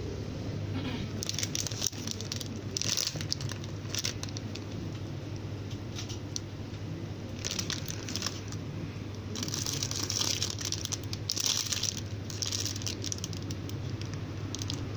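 Clear plastic bags around packaged squishy toys crinkling and rustling as they are handled, in short bursts every second or two.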